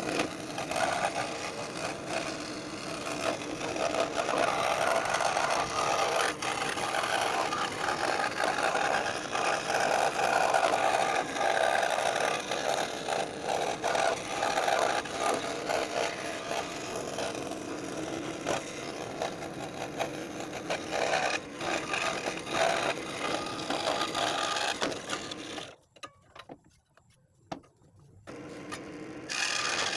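Scroll saw running and cutting wood with a steady rapid chatter. It stops for about two seconds near the end, then starts up again.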